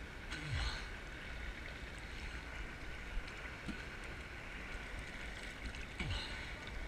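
Choppy sea water sloshing and lapping around a camera held at the waterline, with a gurgling splash about half a second in and another near the end.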